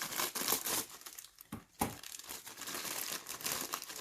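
Thin plastic bag around model-kit parts crinkling as it is handled and opened, with a sharp click a little under two seconds in.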